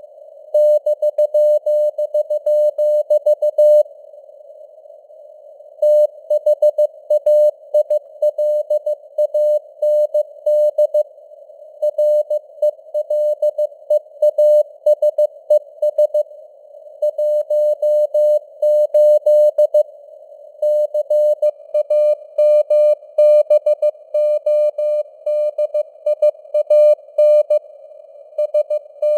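Morse code (CW) sent at 15 words per minute as a keyed tone of about 600 Hz, in quick dots and dashes. Faint simulated radio noise hisses around the tone between characters, and there are pauses of a second or two between groups.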